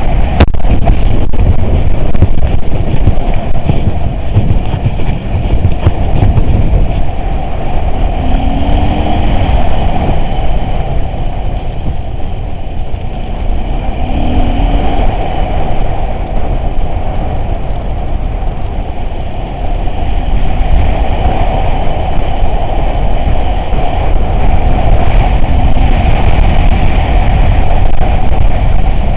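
Off-road vehicle driving, a loud steady rumble of engine and running gear that dips slightly in the middle and swells again near the end.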